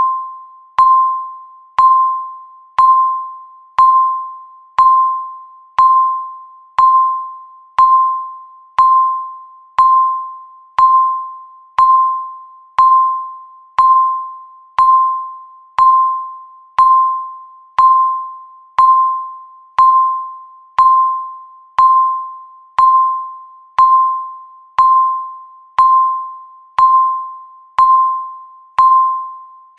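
A countdown timer's electronic beep repeating once a second, marking off each second: a single high tone that starts sharply and fades quickly, like a small chime.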